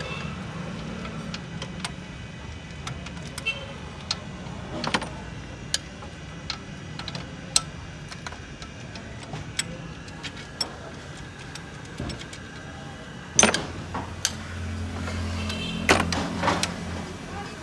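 Hand tools working on the engine: scattered metallic clicks and clinks from a spanner and bolts, with louder clattering about 13 seconds in and again near 16 seconds, over a steady low hum.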